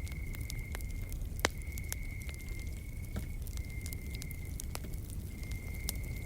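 Campfire crackling with scattered sharp pops, the loudest about one and a half seconds in, over a low steady rumble of the burning fire. An insect trills on one high steady note in stretches of a second or so, with short breaks between them.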